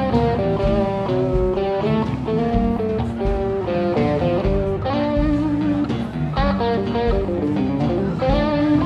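Live blues-rock band playing an instrumental passage: electric guitar playing a melodic line of changing notes over bass guitar and drums.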